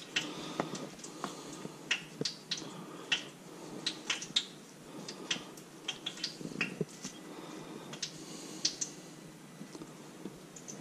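Hands tossing raw fish chunks in breading mix in a plastic container: scattered light clicks and taps of fingers and fish against the plastic, at irregular intervals.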